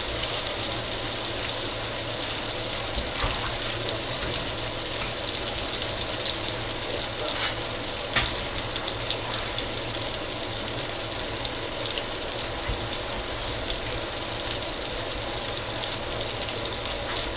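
Food frying in hot oil: a steady sizzle, with two short sharp clicks a little before and after the middle.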